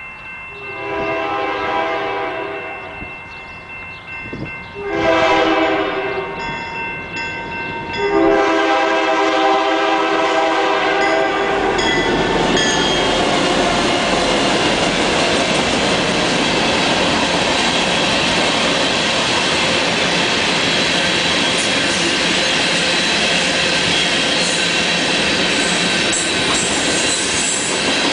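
Canadian Pacific diesel locomotive sounding its air horn in three blasts, about a second, five seconds and eight seconds in, the last the longest. The locomotive then passes, followed by a long string of ballast hopper cars rolling by with a steady, loud clatter of wheels over the rails.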